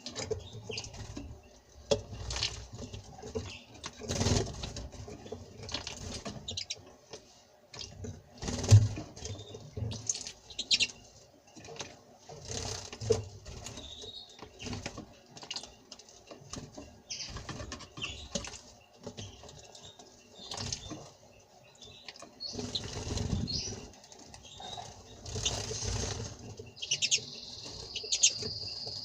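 A European goldfinch and a common rosefinch bathing: wings fluttering and splashing water in irregular bursts, with occasional chirps. A steady high trill starts near the end.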